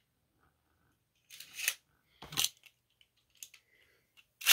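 Beyblade tops and launchers being handled: two short bursts of plastic clicking and scraping about half a second apart, then a few faint clicks.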